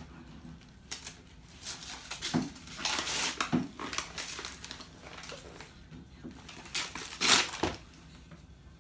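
Gift wrapping paper crinkling and tearing as it is pulled off a book, in irregular rustling bursts, with the loudest rip about seven seconds in.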